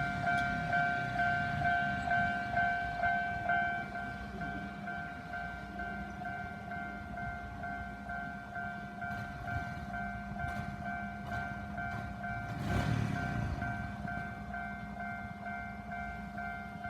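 Japanese railway level-crossing warning bell ringing, a low-pitched ding repeating about twice a second. It drops in volume about four seconds in and keeps ringing, over a low rumble with a brief rush of noise about thirteen seconds in.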